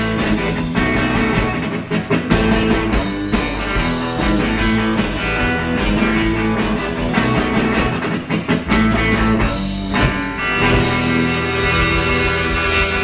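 Live rock band playing: electric guitars over a drum kit, loud and full throughout.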